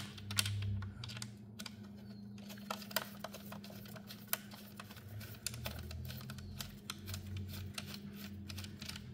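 Irregular light clicks and ticks of a small bolt being turned by hand into the metal back plate of a JuiceBox EV charger, over a steady low hum.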